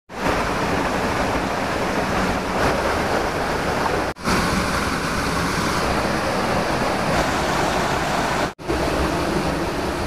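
Steady rush of a waterfall and its rocky stream pouring into a pool, breaking off for a split second twice.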